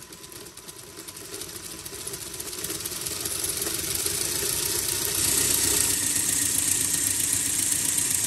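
Lego Technic model of a 16-valve quad-cam boxer four-cylinder engine running, its plastic pistons, valves and belt-driven camshafts turning with a steady mechanical noise. The noise grows louder over the first five seconds or so, then holds steady.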